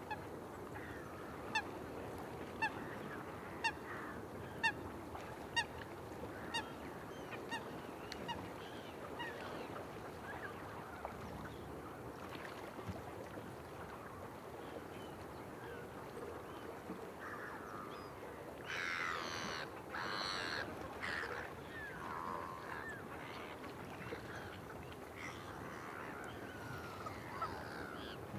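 A flock of birds calling: a run of short, sharp calls about once a second over the first eight seconds or so, over a busy chatter of many fainter calls, with a cluster of louder, harsher calls about two-thirds of the way through.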